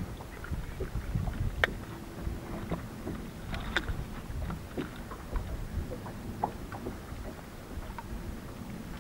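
Low rumble of wind and water around a bass boat sitting on the lake, with scattered sharp clicks and taps from handling a bass on a lip-grip scale, the sharpest about one and a half seconds in and again near four seconds.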